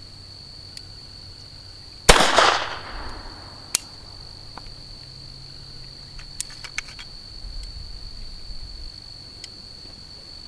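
A single shot from a Whitney Wolverine .22 LR pistol about two seconds in, its report trailing off in a short echo, followed by a sharp click and, a few seconds later, several lighter clicks. Insects keep up a steady high trill behind it.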